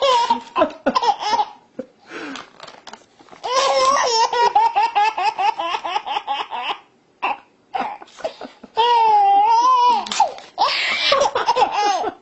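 Baby laughing hard in long runs of quick belly laughs, with a drawn-out high squeal about nine seconds in, set off by paper being torn.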